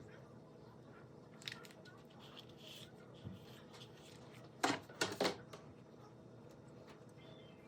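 A few short sharp clicks over a faint steady hum, with a cluster of three louder clicks about five seconds in.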